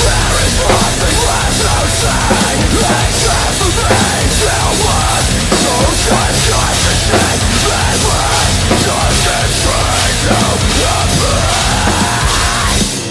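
Drum kit, Pearl drums with Sabian cymbals, played hard and fast along to a loud progressive metalcore song.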